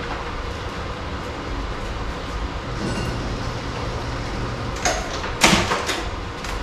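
Vinyl wrap film being shifted and lifted on a car body: a few brief rustling swishes about five seconds in, the loudest near five and a half seconds, over a steady low rumble.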